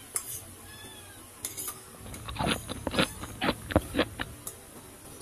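A person slurping soup from a bowl: a run of about eight loud, quick sips starting about two seconds in. A cat meows faintly about a second in.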